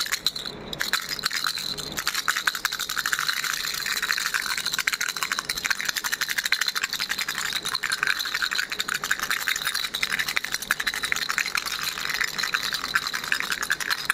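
Baby rattle shaken without pause, a dense stream of small rattling clicks.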